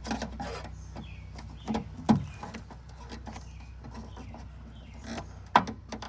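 Plastic door trim and push-pin clips being pried and handled: scattered clicks and creaks, with a louder knock about two seconds in and sharp clicks near the end, over a steady low hum.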